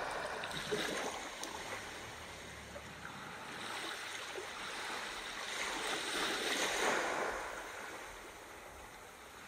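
Sea waves: a steady wash of surf that slowly swells to a peak about seven seconds in and then draws back.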